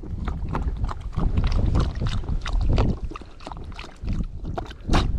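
A Brittany bird dog lapping water from a plastic bottle held to its mouth: a quick, irregular run of wet clicks and splashes. Heavy wind rumbles on the microphone underneath.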